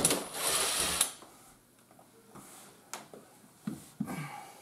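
A cordless driver runs for about a second, backing out one of the screws that hold the mini split floor console's front panel, then stops suddenly. A few light clicks and knocks follow near the end as the screw and panel are handled.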